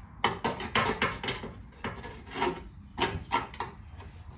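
A screwdriver scraping and knocking at dried, caked mud in a car's door-hinge recess, in short, irregular strokes.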